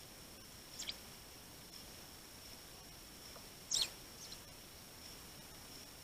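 Eurasian tree sparrows giving short, high chirps: a brief one about a second in, a louder one near four seconds, and a faint one just after it.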